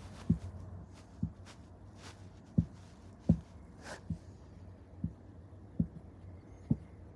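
A series of soft, low thumps, about one a second, eight in all, over faint room noise.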